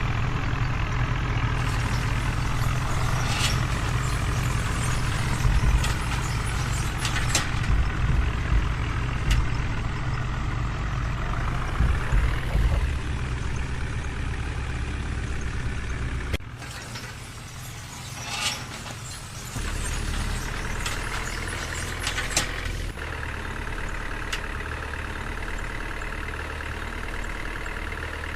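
Heavy vehicle engine running steadily with a low hum, with scattered sharp clicks and knocks. It cuts off abruptly about halfway and comes back quieter a few seconds later.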